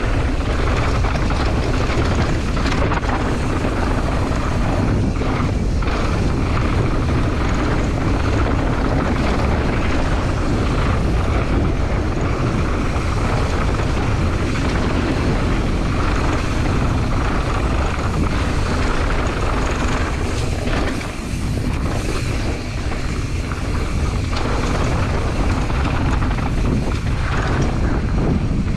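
Wind rushing over the microphone and the rattle and crunch of a mountain bike's tyres and frame as it descends a dirt and gravel trail at speed. The noise is steady and loud, easing briefly about three-quarters of the way through.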